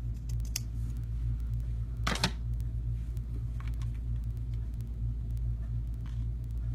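Paper being trimmed: a small click, then one louder crisp cut about two seconds in, and a few faint clicks after, over a steady low hum.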